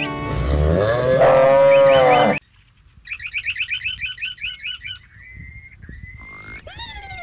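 A cow mooing: one long moo that cuts off abruptly about two and a half seconds in. It is followed by a quick run of high chirps and thin whistling tones that glide downward near the end.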